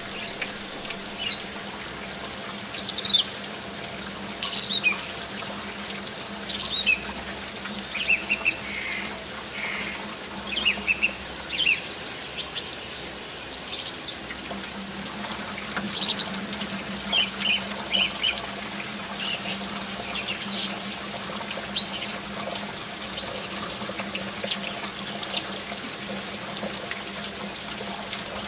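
Many short, scattered bird chirps over a steady wash of running water.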